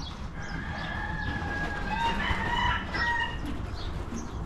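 A rooster crowing in the background, two long drawn-out calls, the first starting about half a second in and the second about two seconds in, over a steady low rumble.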